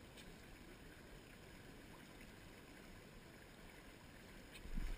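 Faint, steady hiss of a fast-flowing river. Near the end a low rumble rises on the microphone.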